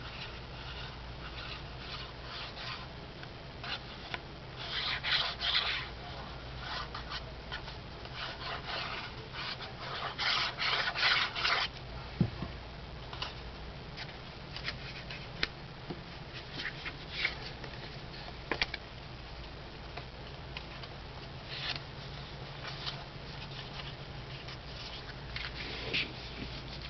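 Paper and cardstock rubbing and rustling as pieces are handled and pressed down by hand, in irregular scraping strokes with a few louder stretches and scattered light ticks.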